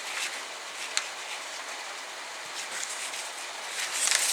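Paper instruction booklet being handled, with a light click about a second in and a rustle of a page turning near the end, over a steady hiss.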